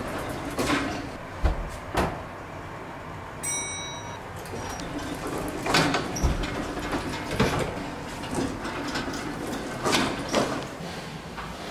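Lift doors sliding and clunking, with scattered knocks and footsteps on a tiled floor. A short electronic chime sounds a few seconds in.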